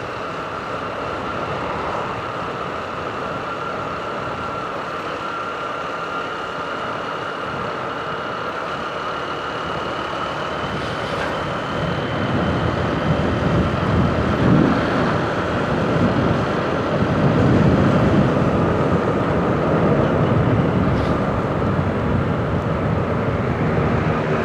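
150 cc motorcycle running steadily while being ridden, its engine tone under wind noise buffeting the microphone; the wind rumble grows louder from about halfway through.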